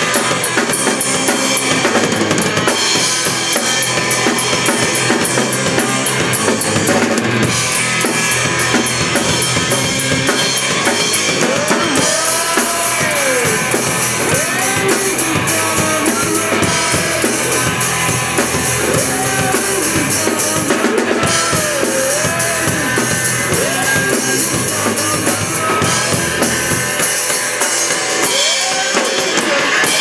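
Live rock band playing with a loud drum kit (bass drum and snare) under electric guitars and bass. From about halfway, a melody line that bends up and down in pitch runs over the band.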